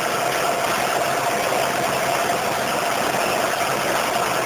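Steady machine hum and fan noise of refrigeration equipment running in a cold room, with a constant whine over it.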